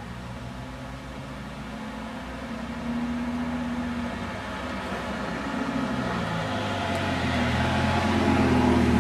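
Lamborghini Gallardo pre-series prototype's V10 engine running steadily as the car drives up, growing louder as it nears.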